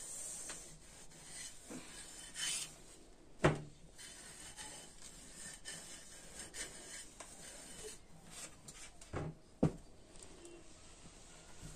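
Electric iron sliding back and forth over folded cloth, an irregular rubbing swish, with a couple of sharp knocks, the loudest about three and a half seconds in and another near the end.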